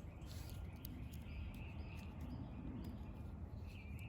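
Faint outdoor ambience: a steady low rumble with a few short bird chirps and some light clicks.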